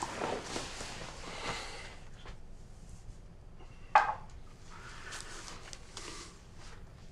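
Quiet room with soft rustling, and one sharp knock about four seconds in: a drinking glass set down on a table.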